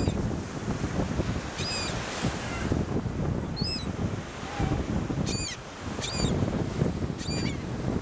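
A flock of gulls calling overhead in short, high cries, one every second or two. Beneath them runs the steady rush of surf breaking on the beach, with wind buffeting the microphone.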